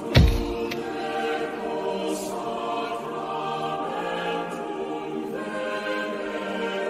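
A choir singing long, sustained chords, with a single deep boom right at the start that is the loudest sound.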